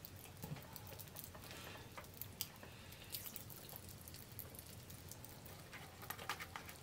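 Faint scattered crackles and clicks of Pop Rocks popping candy, with the rustle of its foil packet being tipped into a child's mouth.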